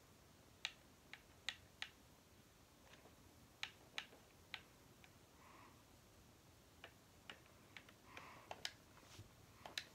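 Plastic button clicks of a TV remote control pressed over and over at an uneven pace, about fifteen quiet clicks in all, while skipping forward through a video.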